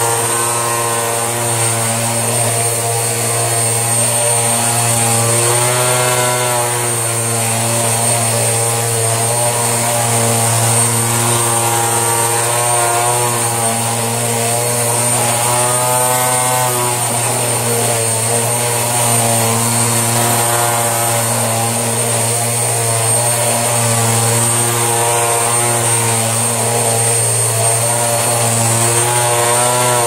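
Panasonic MC-UG342 upright vacuum cleaner running steadily, a loud motor hum with a thin high whistle over it. Its pitch wavers briefly twice, about six and sixteen seconds in.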